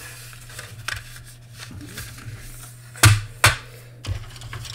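Styrene plastic model-kit parts on their sprue clattering as they are handled and set down on a cutting mat, with two sharp knocks about three seconds in and a lighter one shortly after.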